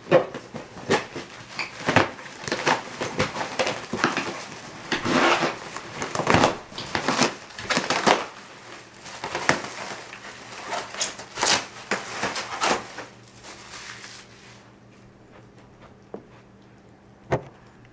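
Packaging being torn into and handled: irregular crinkling and crunching of packing material and cardboard, with sharp knocks and rustles. It stops about fourteen seconds in, leaving a quiet room with a faint hum.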